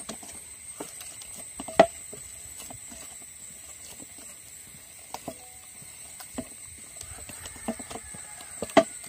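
Hands mixing and kneading a soft maida dough with oil in a bowl: irregular soft clicks and knocks, with a sharper knock about two seconds in and another near the end.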